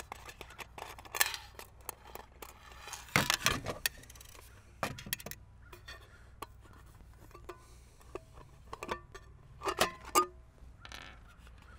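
Thumb screw and wing nut being worked loose on a stack of thin commercial-grade aluminum pie tins: scattered small metallic clicks and scrapes. A few short clinks of the aluminum ring briefly, one about three seconds in and more near the end as the top tin is lifted off.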